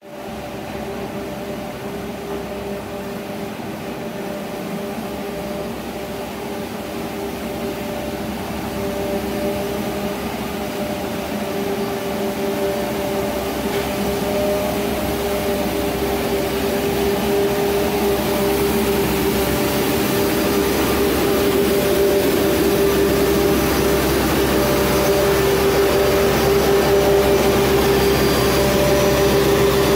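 Compact street-sweeper vehicle running with a steady whine, growing gradually louder as it approaches and passes directly below.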